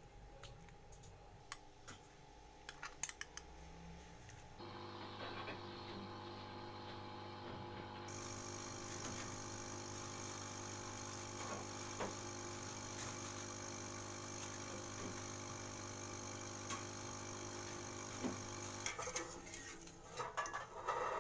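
Potato wedges dropped into a bowl of water, with a few small clicks and splashes. Then a steady hiss of potato wedges boiling in a steel pot on the stove, with a steady hum under it. Near the end a wire skimmer clinks and scrapes against the steel pot as the wedges are lifted out.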